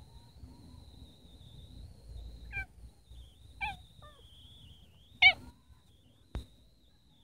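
Brown tabby cat giving three short meows about a second apart while being stroked, the last one loudest. Near the end there is a single sharp click, and a faint steady high tone runs underneath.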